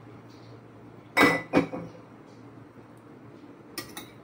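Metal spoon clinking and scraping on ceramic plates while eating: two louder knocks a little over a second in, then a few light clicks near the end.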